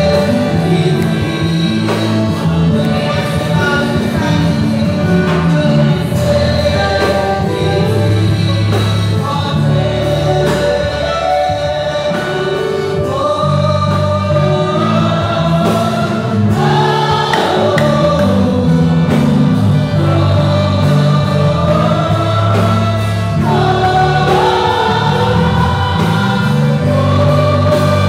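A gospel worship song sung by a group of voices, with a steady bass and keyboard accompaniment holding long notes underneath.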